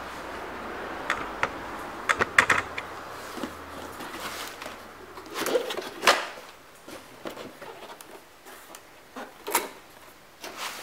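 Cardboard and crumpled packing paper being handled as a keyboard controller's box is pulled out of its shipping carton: irregular rustling and scraping with scattered knocks and clicks, the loudest bunched about two seconds in and again near six seconds.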